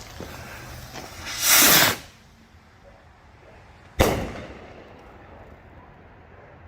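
A small aerial firework rocket launching with a loud whoosh that falls in pitch as it climbs away. About two seconds later it bursts with a single sharp bang that dies away over about a second.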